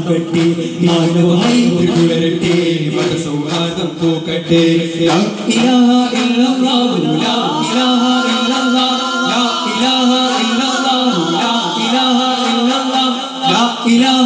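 Daff frame drums struck in a steady rhythm by a group, under voices singing a devotional song in unison. The melody steps up to a higher pitch about five seconds in.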